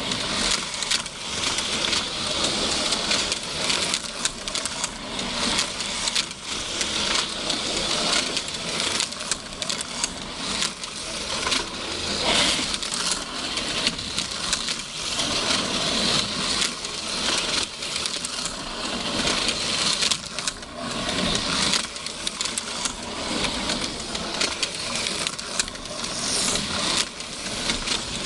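HO-scale slot cars running on a plastic track: small electric motors whirring, with frequent clicks and clatter from the cars on the track and from collisions that tip them over.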